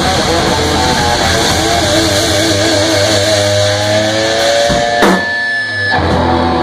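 Rock band playing live in a small room: electric guitar, bass guitar and drum kit. Long wavering held notes, a sharp drum-and-cymbal hit about five seconds in, then sustained ringing notes.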